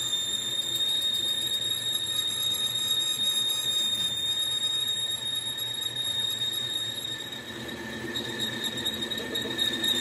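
Steady high-pitched metal squeal from a machine tool working on a steel hydraulic cylinder rod, with a little more low rumble coming in near the end.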